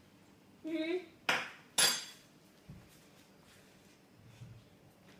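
Kitchenware being handled: two sharp clinks about half a second apart, the second ringing briefly like metal cutlery or a dish, then a faint knock.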